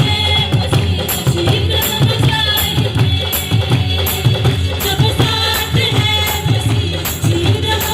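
Devotional worship music played by a band, with a tambourine jingling on a steady beat over low bass and sustained keyboard notes.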